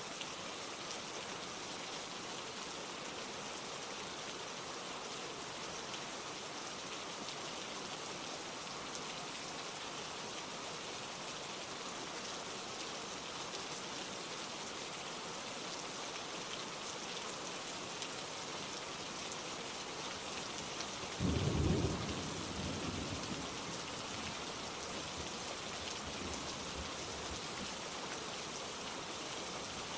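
Steady rain falling. About two-thirds of the way through, a sudden low rumble of thunder rises and dies away over a couple of seconds.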